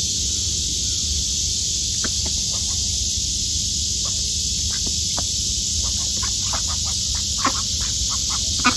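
Domestic ducks feeding on grain scattered over bare dirt: many short, soft clicks and brief calls that get busier in the second half, with a couple of louder calls near the end, over a steady high hiss.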